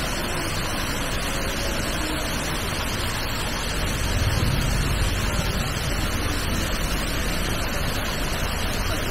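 Water pouring down a tall artificial rock waterfall into a pool: a steady rush of noise, with a low rumble swelling about four seconds in.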